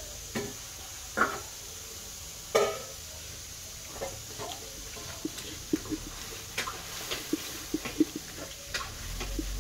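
A stone pestle rolling and crushing fresh tomato into spices on a silauto, a flat Nepali grinding stone. From about four seconds in it makes rapid, irregular wet knocks and squelches. Before that come a few separate soft squishes as the tomato is torn apart by hand.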